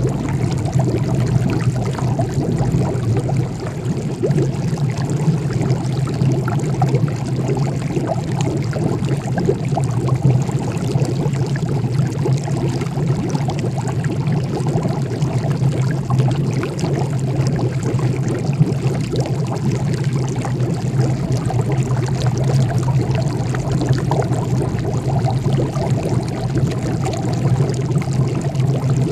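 Liquid bubbling steadily in a large glass jar heated over a charcoal fire, a continuous watery rush over a low, even hum.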